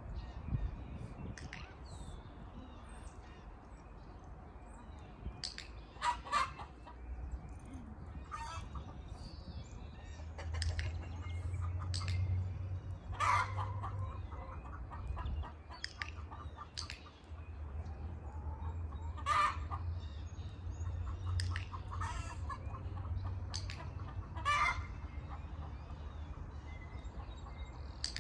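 Chickens clucking, with several short, loud squawking calls spread through. A steady low rumble runs underneath.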